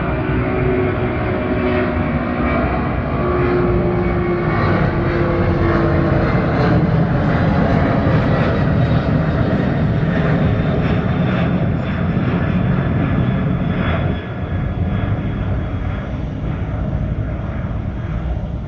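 Boeing 767-300 freighter's twin jet engines at takeoff power as the aircraft takes off. A loud, steady roar with a few steady tones through it, growing to its loudest partway through and then slowly fading.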